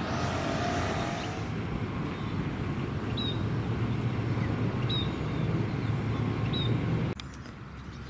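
Steady low rumble of distant traffic under an outdoor field recording, with three short high chirps from a small bird about every two seconds. The rumble cuts off suddenly about seven seconds in, leaving a quieter background with a few faint clicks.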